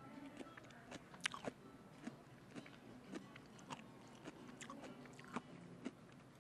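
Faint, scattered small clicks and crunches of someone chewing food.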